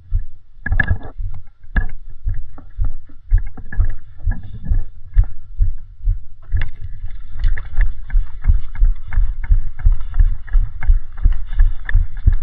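Footsteps and gear jostling the mic, heard as repeated low thumps that settle into a steady brisk rhythm of about two to three steps a second from about halfway.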